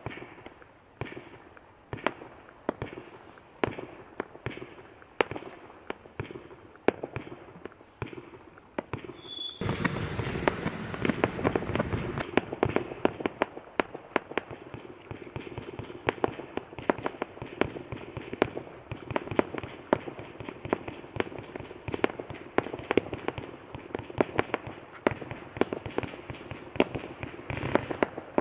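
Absolute Fireworks Neon Nites 100-shot low-noise barrage firing: evenly spaced pops about two a second at first, then from about ten seconds in a louder, faster run of many pops close together.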